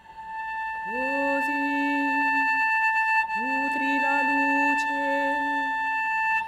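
Cello played with the bow: two long held notes, each sliding up into its pitch, the first about a second in and the second just after the three-second mark. A steady high tone sounds underneath the whole time.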